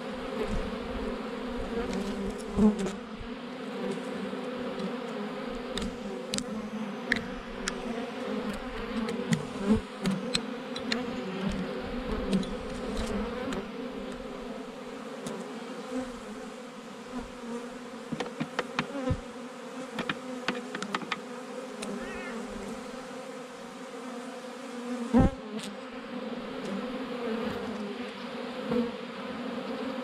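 A swarm of honey bees buzzing in a steady drone as they are brushed into a hive box. Scattered taps and clicks sit over the buzz, and the loudest knock comes near the end.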